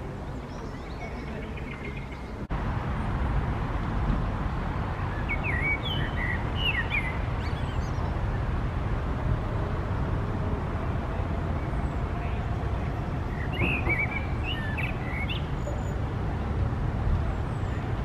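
Eurasian blackbird singing two short whistled, warbling phrases several seconds apart, over a steady low rumble.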